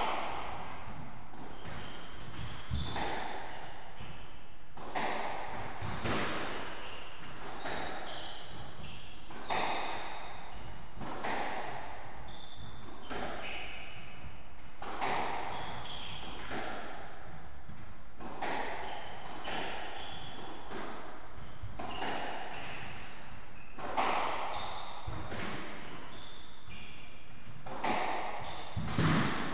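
Squash rally: a squash ball cracking off rackets and the court walls about once a second, each hit echoing around the court. Between the hits come short high squeaks of shoes on the wooden floor.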